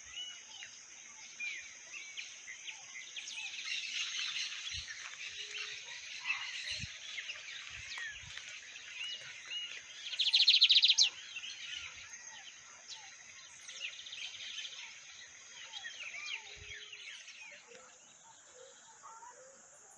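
Several wild birds chirping and calling over a steady high-pitched hiss, with one loud rapid buzzy trill lasting about a second, about halfway through.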